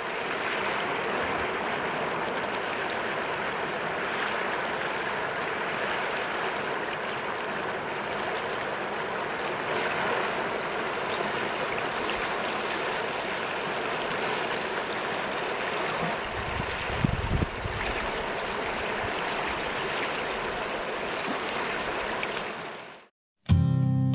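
San Juan River water running shallow over rocks at the edge, a steady rushing wash, with a few low bumps about two-thirds through. It cuts off suddenly near the end and acoustic guitar music begins.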